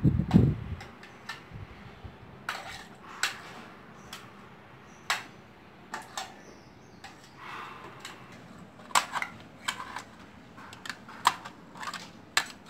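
A low thud at the start, then scattered light plastic clicks and knocks at irregular intervals: a toy plastic knife tapping and scraping on a hollow plastic toy goose.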